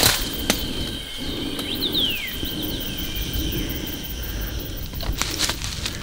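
Forest ambience: a steady high-pitched drone, with a few quick falling bird whistles about two seconds in. Footsteps and brushing through undergrowth are heard, with a sharp knock at the start and more rustling near the end.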